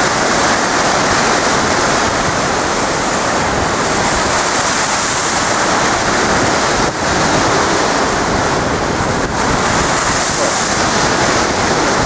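Storm waves surging and breaking against a sea wall, a loud, continuous rush of churning water with wind on the microphone.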